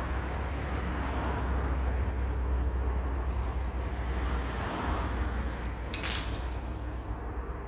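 Steady low hum and background noise, with one sharp click about six seconds in.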